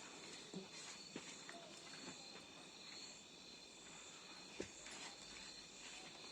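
Near silence: a faint steady high-pitched hiss with a few soft, faint ticks.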